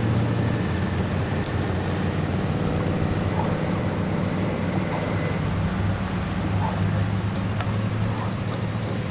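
Aerial tramway car travelling along its track ropes: a steady low rumble with a constant hum and an even hiss over it.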